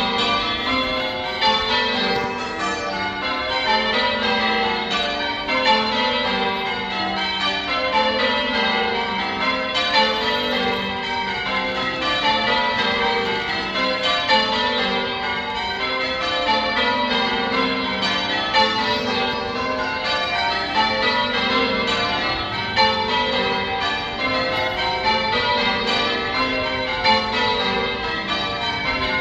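Church bells rung in changes: a steady, continuous run of bell strikes following one after another, each ringing on into the next.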